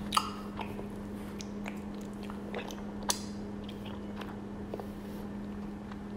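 Chewing a mouthful of raw honeycomb close to the microphone: scattered sticky mouth clicks and smacks, two sharper ones near the start and about three seconds in, over a steady low hum.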